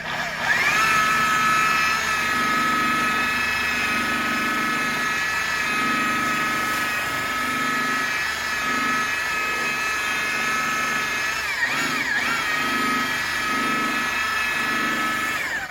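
High-speed rotary buffer polishing a plastic headlight lens after the sanding steps. It spins up to a steady high whine, with a low pulsing hum under it. The pitch wavers briefly about twelve seconds in, and the buffer winds down near the end.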